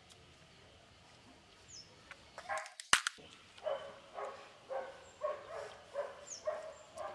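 A dog barking repeatedly, about two barks a second, after a single sharp crack about three seconds in. A bird chirps briefly.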